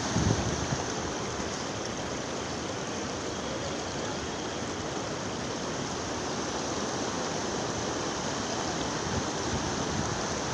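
Steady rush of monsoon floodwater flowing fast across a crossing like a small river. Wind briefly buffets the microphone at the start.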